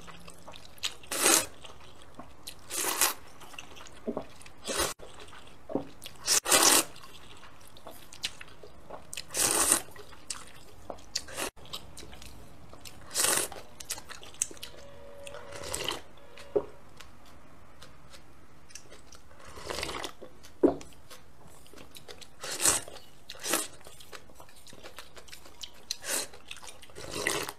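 A person slurping noodles and spicy noodle soup, with a loud slurp every one to three seconds and chewing in between.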